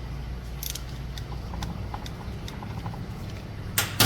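Light metallic clicks and taps from dirt-bike engine parts being handled during reassembly, then two sharp metal clicks near the end. A steady low hum runs underneath.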